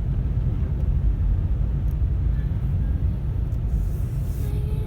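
Wind buffeting the microphone in a snowstorm: a steady, loud, low rumble.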